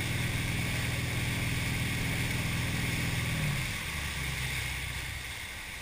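Motorboat engine running steadily at speed while towing, then easing off about three and a half seconds in, its note dropping and fading. The rush of the wake runs throughout.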